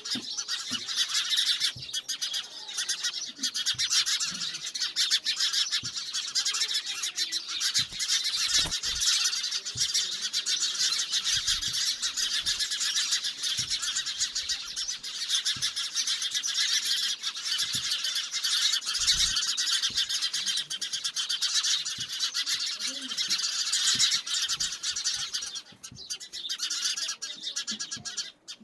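A dense, continuous chorus of many birds chirping and calling, thinning out near the end.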